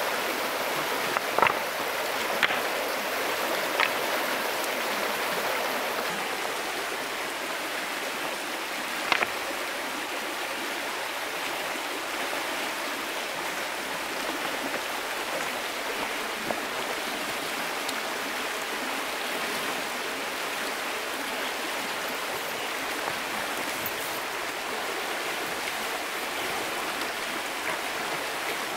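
Stream water rushing steadily over shallow rapids. A few sharp clacks of river stones knocking together as they are moved by hand sound in the first ten seconds.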